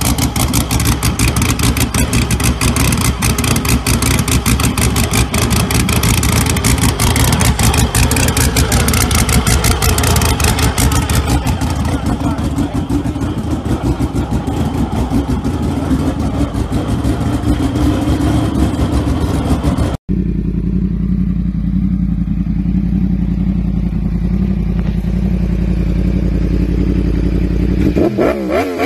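Turbocharged flat-six of a Kremer Porsche race car running at a fast, pulsing idle. After a sudden cut about two-thirds through, a different engine idles steadily at a lower pitch, with a wavering rev change near the end.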